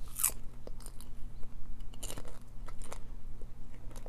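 A person chewing popcorn close to the microphone, with irregular crunches, the loudest near the start, about two seconds in and at three seconds. A faint steady hum lies underneath.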